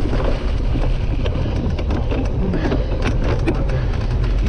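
Cyclocross bike ridden hard over bumpy grass and leaf-covered ground: a steady low rumble from the tyres and wind, with frequent rattles and knocks as the bike bounces over the bumps.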